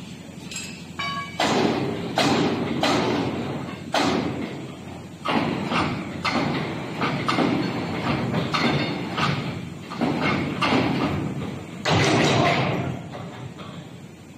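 Repeated heavy thuds of a cross-type universal coupling being struck to knock it apart during disassembly, about one blow every two-thirds of a second with a few short pauses, and a longer, louder impact about twelve seconds in.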